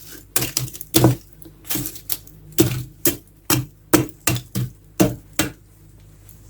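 Firewood being loaded into a fireplace: a quick, irregular run of sharp wooden knocks and clacks as logs are set in, stopping about a second before the end.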